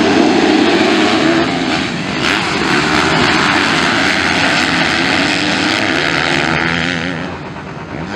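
A pack of 250cc motocross bikes revving hard and accelerating away together off the starting gate; about two seconds in the sound changes to bikes running at full throttle around the track, getting somewhat quieter near the end.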